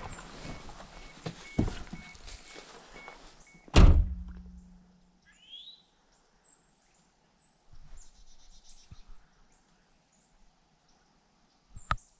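A car door slams shut with one loud thunk about four seconds in. Before the slam a door-ajar chime beeps steadily, and it stops when the door shuts. A softer knock follows near the end.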